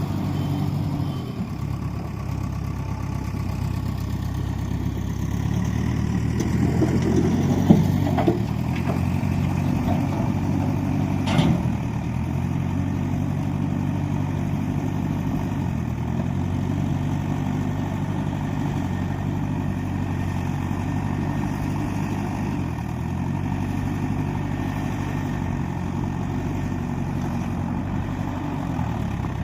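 Heavy diesel engine of construction machinery running steadily, picking up slightly for a few seconds, with two sharp knocks about 8 and 11 seconds in.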